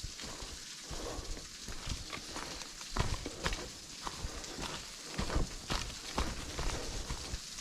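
Footsteps of a hiker crunching through dry leaves and over rocky ground, an uneven run of crackles and thuds.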